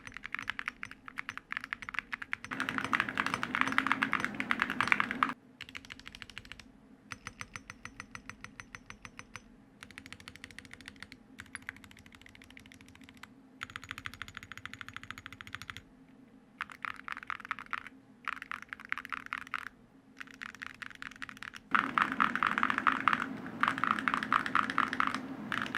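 Typing on a Glacier 80 mechanical keyboard fitted with Awekeys full-metal keycaps: rapid keystrokes in several bursts with short breaks between them, the louder runs about two seconds in and near the end. The metal caps push the sound to the deeper, talkier side.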